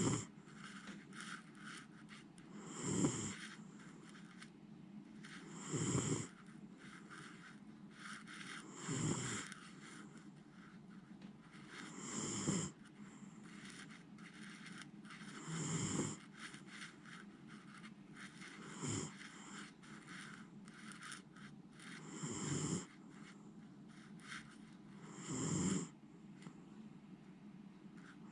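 Miniature schnauzer snoring in deep sleep, one snore about every three seconds.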